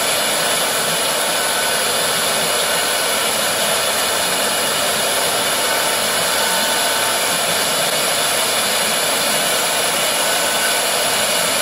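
4-axis CNC router's spindle running at speed, its end mill carving a block of epoxy tooling board held in the rotary axis: a steady high whine over a continuous cutting hiss.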